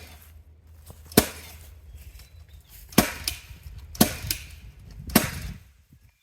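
Battery-powered nailer firing nails into lumber: four loud sharp shots about one to two seconds apart, with lighter knocks between.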